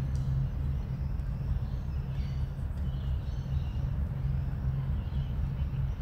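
Steady low rumble of distant city traffic, with faint bird chirps scattered through it.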